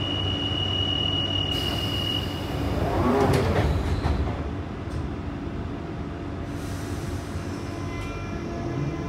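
Inside a 1992 Tube Stock underground carriage: a steady high door warning tone for about two seconds, then the sliding doors close with a hiss and a loud thump about three seconds in. After another hiss, the traction motors start a rising whine near the end as the train pulls away.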